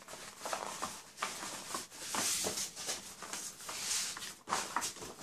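Heavy, card-like paper rustling and scraping as hands fold and press creases into it, in irregular swells.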